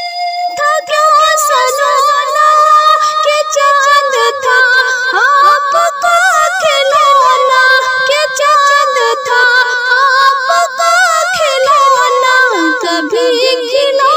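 A woman's voice singing a naat, an ornamented melody with a heavy wavering vibrato.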